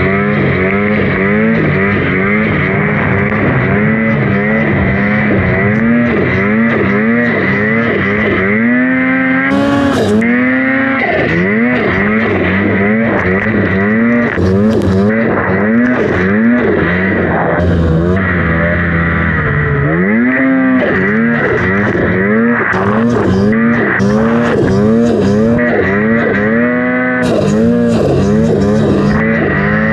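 Two-stroke engine of a Polaris RMK Khaos mountain snowmobile revving up and down about once a second while plowing through deep powder. A steady high whine runs under it, with short bursts of hiss.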